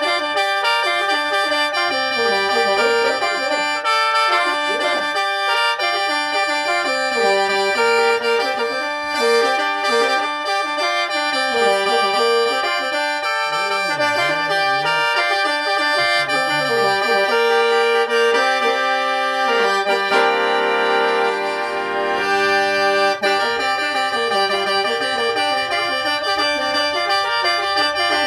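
Khaen, the Lao bamboo free-reed mouth organ, played solo in the lai yai mode, pitched in G minor: a moving melody over steady drone notes. About twenty seconds in, it briefly plays a denser block of chords.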